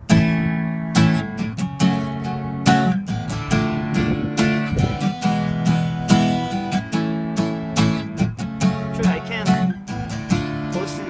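Music: an acoustic guitar strummed in steady chords, starting abruptly.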